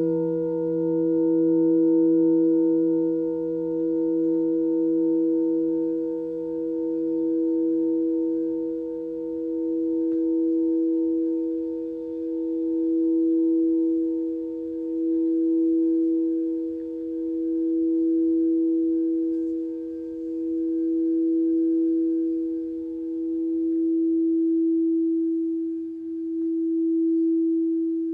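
Singing bowl ringing on after being struck, one steady tone with a slow, regular wobble about every two seconds. Its low hum fades out about halfway through, and a higher overtone dies away near the end.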